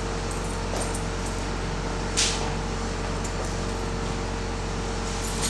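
Steady mechanical room hum with a constant tone, like an air conditioner or fan running, and one short swish about two seconds in.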